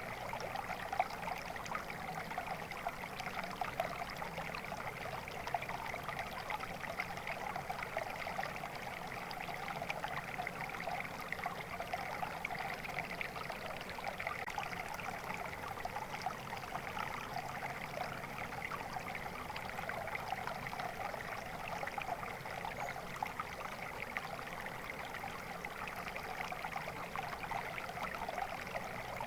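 Flowing water, a stream running and trickling with a steady babble and fine splashing throughout.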